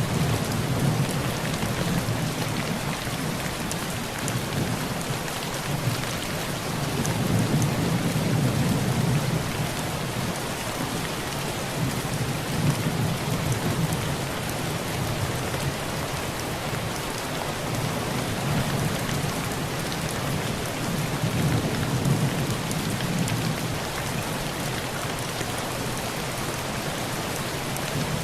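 Heavy rain falling steadily on a tin roof, with low rolls of thunder swelling up several times, most strongly about seven to ten seconds in.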